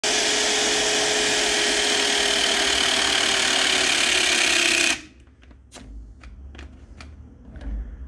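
Milwaukee M18 12-tonne battery hydraulic cable crimper running through a crimp on a cable lug: its brushless motor and hydraulic pump make a loud, steady whirr whose pitch sinks slowly as the load builds, then it cuts off abruptly about five seconds in as the crimp reaches full pressure. About half a dozen sharp clicks follow.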